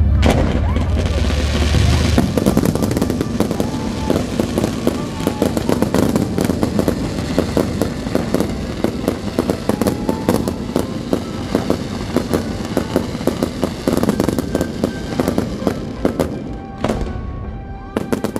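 Fireworks display: a dense run of bangs and crackling bursts, thinning out near the end, over music from the show's sound system.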